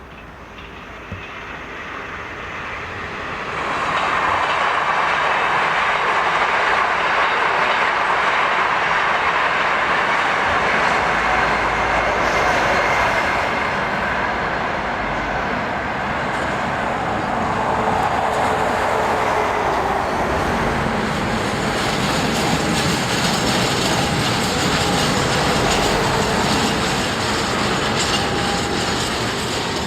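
Freight train rolling past on the track, growing louder over the first few seconds into steady wheel-on-rail noise with clattering and faint wheel squeal.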